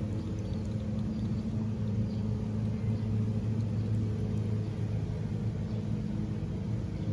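Steady low hum of an idling motor vehicle engine.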